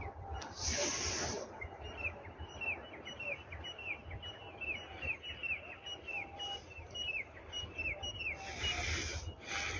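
Partridges (teetar) calling: a quick, even series of short, high, downward-slurred notes, two or three a second, over a low rumble. There are two short rushes of noise, one about a second in and one near the end.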